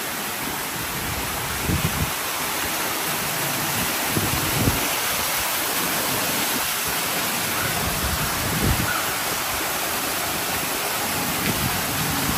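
Steady rush of water falling from a lazy-river waterfall, with a few low thumps.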